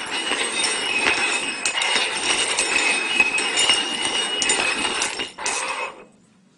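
Hard cups being slid and shuffled around on a table top, giving a continuous scraping and rattling with small clinks. It stops about five seconds in, followed by a shorter burst of shuffling.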